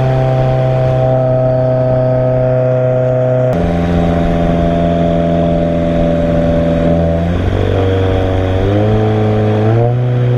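Straight-piped exhaust of a 2017 Subaru Forester XT with a catless downpipe, its turbocharged 2.0-litre flat-four (FA20DIT) running: a loud, steady drone that shifts abruptly about a third of the way in, then steps up in pitch a few times near the end.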